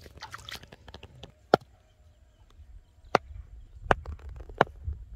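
A piece of wood striking the top of a bamboo stake, driving it into riverbank mud: four sharp knocks, the first about a second and a half in and the rest coming faster, roughly one every second.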